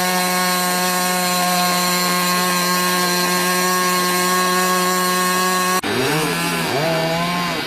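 Small RC model-airplane engine running at a high, steady pitch. About six seconds in, the sound cuts abruptly to the engine with its pitch rising and falling.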